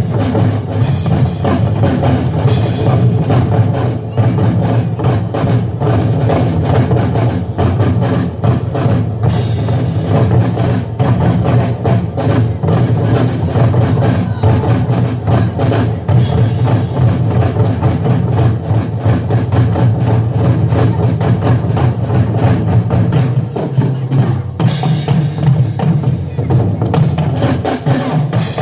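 Loud music with a drum kit playing a steady, driving beat, bass drum strong underneath.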